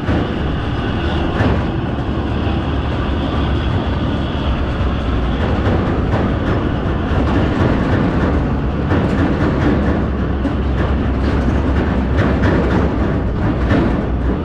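Steady vehicle driving noise: a low engine and road rumble with many small rattles and clacks.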